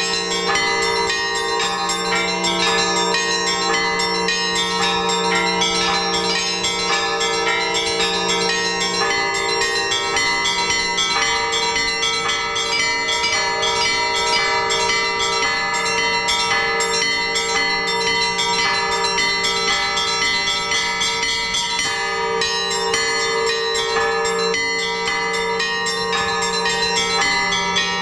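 Orthodox church bells rung together in a continuous peal (trezvon): fast, repeated strikes on the small bells over the steady hum of the larger bells.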